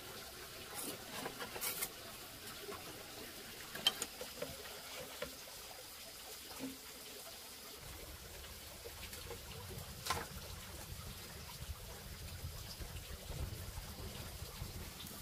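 Water trickling, with scattered light clicks and knocks; a low steady rumble comes in about halfway through.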